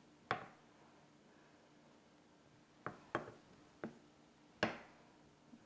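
A few short, light clicks and knocks over a faint steady background: one just after the start, three close together around the middle, and a stronger one near the end.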